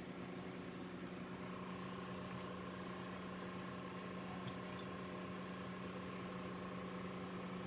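Steady machine hum, with a thin higher whine joining about a second and a half in and two quick clicks about four and a half seconds in.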